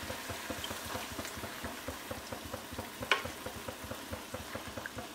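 Chicken pieces and mushrooms sizzling in a frying pan as cream is ladled in over them, with a dense crackle of tiny pops. One sharp clink about three seconds in.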